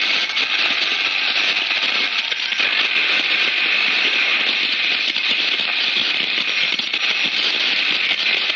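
Cartoon sound effect of a matter transmitter in operation: a loud, steady hiss like heavy static, sending a living test animal through space.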